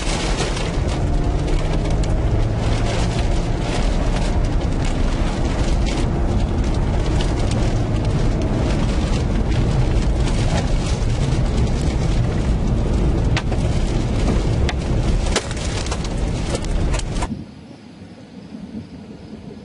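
Tornado wind rushing loudly over the microphone with a heavy low rumble, while flying debris pelts the vehicle in many sharp cracks and hits. About three-quarters of the way through it cuts off suddenly to a much quieter steady wind.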